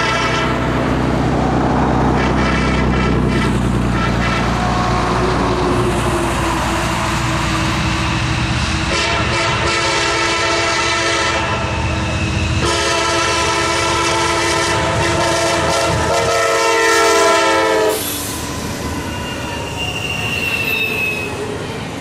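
Nathan Airchime K5LA five-chime horn on a Norfolk Southern SD70ACC diesel locomotive sounding in long blasts as the train approaches, over the rumble of the diesel engines. The horn cuts off about eighteen seconds in, leaving the rolling clatter of double-stack intermodal cars passing, with a brief wheel squeal.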